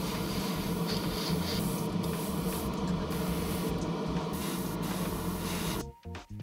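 Airbrush spraying paint with its compressor running: a steady hiss over a motor hum, cutting off abruptly near the end.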